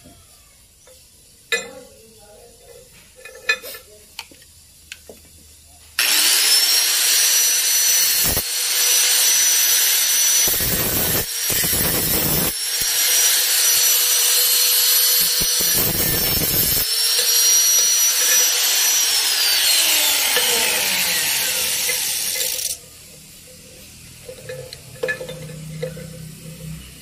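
Hand-held electric angle grinder starting about six seconds in and running loud with a steady high whine while grinding on a metal part; near the end of its run the pitch falls as the motor spins down, and it stops with about four seconds left. Light clinks of metal parts being handled come before it.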